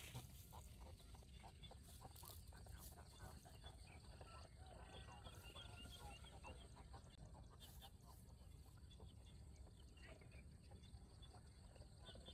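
Faint rural ambience: scattered bird chirps and calls over a low steady rumble.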